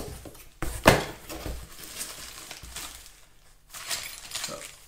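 Cardboard box and plastic packaging being handled and rustled during unpacking, with a sharp knock about a second in.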